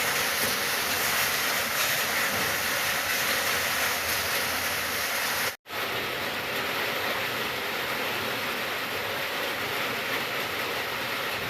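Steady rain, an even hiss, cutting out completely for a split second about halfway through.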